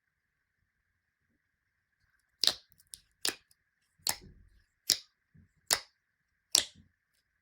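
Slime being played with by hand, giving six sharp pops evenly spaced a bit under a second apart, after a couple of seconds of quiet.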